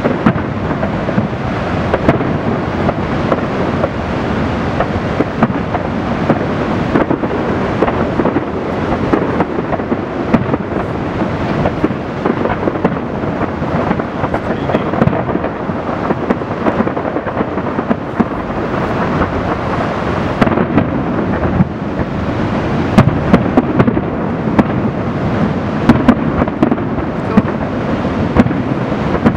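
Fireworks grand finale: a continuous barrage of deep booms and crackling, with sharp cracks coming more often in the second half, over a steady rush of water.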